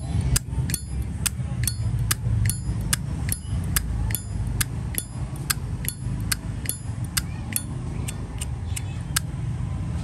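Zippo lighter's hinged lid flicked open and snapped shut over and over, a sharp metallic click about every 0.4 s, some with a short ring.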